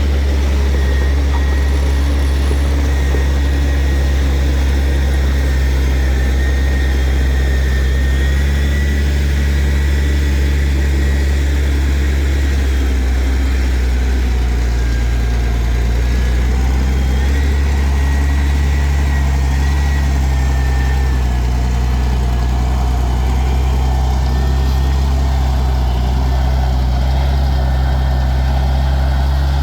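Heavy diesel engine of earthmoving machinery running steadily with a deep, even hum, with a faint high whine wavering above it.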